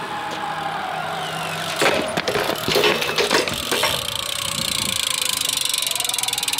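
BMX bike dropped in a bail, clattering several times against the asphalt. After that its rear hub ratchet ticks rapidly and steadily as the wheel spins free.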